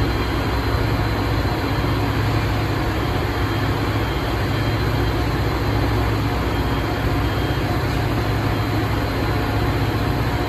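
Diesel locomotive engine running with a steady low rumble and hum.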